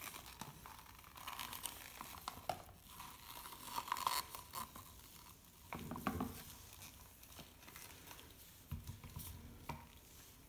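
Faint handling noises: a thin plastic cup rustling and crinkling in gloved hands as it is lifted off wet acrylic paint, with scattered soft clicks.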